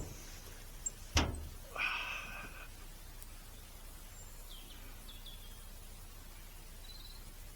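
A single sharp rifle shot from a Mauser K98 about a second in, with a short call just after it and faint bird chirps later.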